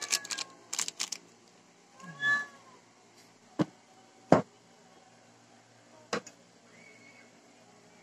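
A domestic cat meowing once about two seconds in, after a run of small sharp clicks in the first second that fit whole black peppercorns dropping into the stainless steel pot. Three sharp knocks follow, the loudest about four seconds in.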